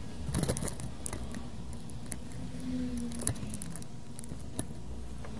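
Light clicks and taps of tweezers and small hand tools being handled on a repair bench: a quick cluster about half a second in, then a few single clicks, over a steady low hum.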